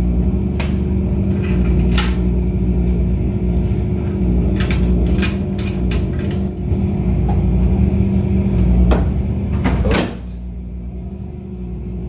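Quarters being fed into a Set-O-Matic coin meter on a washing machine: several sharp clicks and clunks from the coin mechanism, over a steady low machine hum that quietens about ten seconds in.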